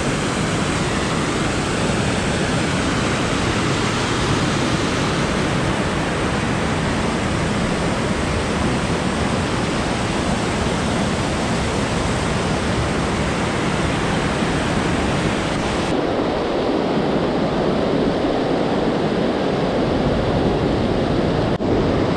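Fast river water rushing steadily over rocks and a small waterfall. About 16 seconds in the sound turns deeper and less hissy.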